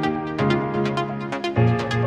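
Electronic background music with a steady beat and held synth chords that change about half a second in and again near the end.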